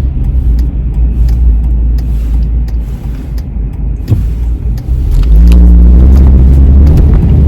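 Car being driven, heard from inside the cabin: a steady low engine and road rumble that grows louder about five seconds in, as the engine note rises under acceleration.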